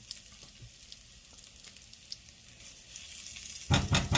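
Chopped garlic and sun-dried tomatoes sizzling in hot avocado oil in a frying pan, a steady fine hiss with small crackles, briefly covered by a louder sound near the end.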